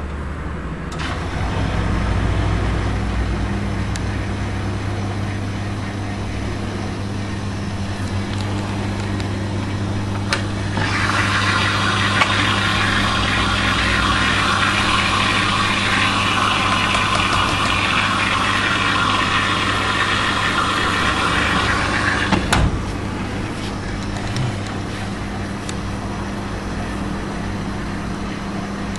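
Rex RL12X front-loading washing machine on its wool cycle, its motor humming steadily as the drum turns. About eleven seconds in, water starts rushing into the machine as it fills, and it cuts off suddenly with a click some twelve seconds later.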